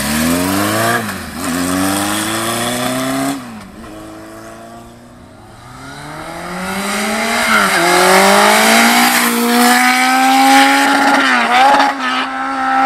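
Kawasaki KZ1000 air-cooled inline-four with CR carburetors and a custom-made exhaust, accelerating hard through the gears, its pitch rising and then dropping at each shift. It pulls away and fades for a couple of seconds, then comes back toward the listener, revving up through two or three more gears and growing loudest near the end.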